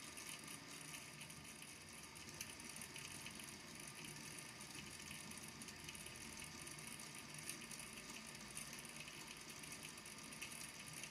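Small balls in a volcano lamp's water tank tapping and clicking on the tank's base as they sink and are pushed back up: a faint, dense, uneven patter of ticks.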